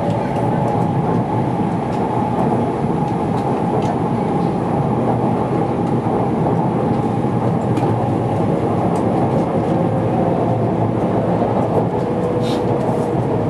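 Cabin noise inside a Kyushu Shinkansen N700 Series train running along the line: a steady, even rumble of wheels and rushing air, with a faint steady hum above it.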